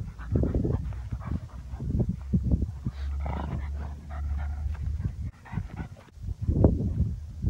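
Pugs snuffling and breathing noisily close by, in short irregular bursts, with a louder burst near the end.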